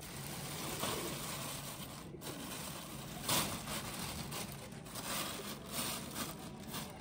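A large plastic sheet crinkling and rustling as it is unfolded and smoothed down by hand, with a few louder crackles, the loudest about three seconds in.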